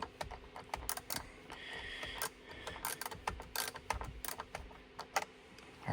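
Ratcheting driver with a T20 Torx bit clicking irregularly as it backs out small screws from steering-wheel trim.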